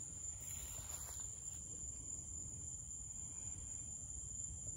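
Night insects chirring in a continuous high-pitched drone over a faint low rumble.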